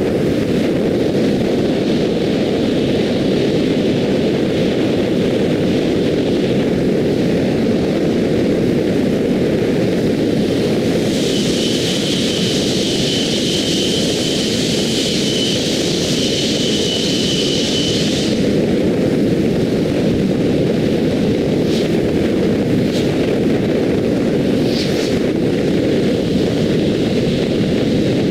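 Steady wind and road noise from a car driving on an expressway, picked up by a GoPro and played back at four times speed. About eleven seconds in, a higher hiss with a steady whine joins it for around seven seconds.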